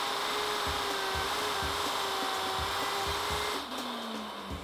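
Plunge router running at full speed with a steady high whine while its straight bit routes into plywood. About three and a half seconds in it cuts off, and the motor winds down with a falling whine.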